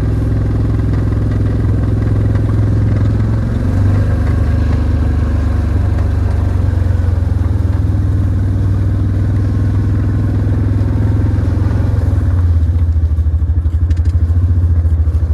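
A farm vehicle's engine running steadily while driving, with rattling over a deep hum; the engine note changes and pulses more near the end.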